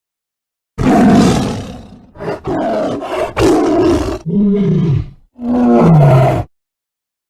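A large animal roaring: a run of loud, rough roars over about six seconds, the last two sliding down in pitch.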